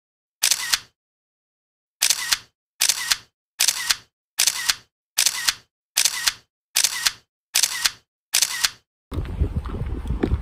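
Camera shutter sound effect clicking ten times: once, then after a pause nine more in a steady run a little faster than one a second, with dead silence between. About nine seconds in it gives way to wind on the microphone outdoors.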